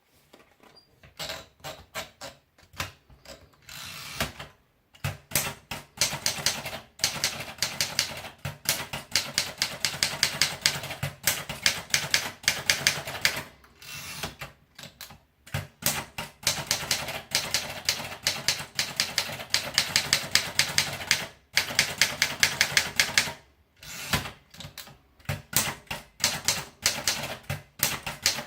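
Remington Monarch manual portable typewriter being typed on: runs of rapid, sharp key strikes with a few brief pauses between runs.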